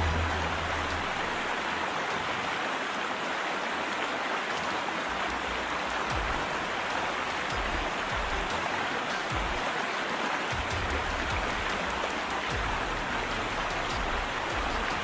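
Steady rushing noise of water, with irregular low rumbles.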